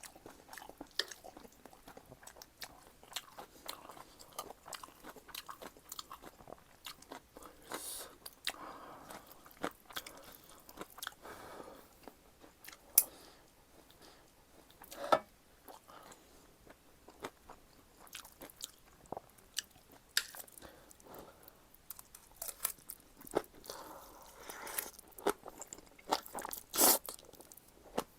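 Close-miked eating: chewing and crunching mouthfuls of black-bean instant noodles and green onion kimchi, with irregular wet clicks and smacks and a few sharper, louder ones.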